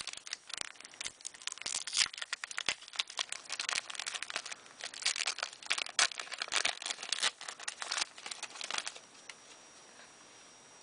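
Crinkling and tearing of a Magic: The Gathering booster pack's foil wrapper being handled and opened, in quick irregular crackles that stop about nine seconds in.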